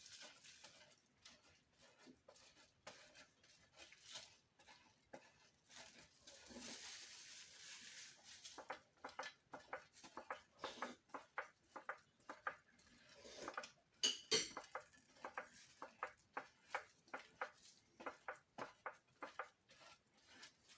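Cheese being grated by hand on a metal grater: a long run of faint, quick scraping strokes, about two or three a second, with one louder knock about fourteen seconds in.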